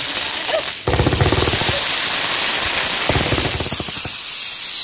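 Consumer fireworks going off: a rapid, dense crackling and popping from several tubes firing together, with falling whistles near the end.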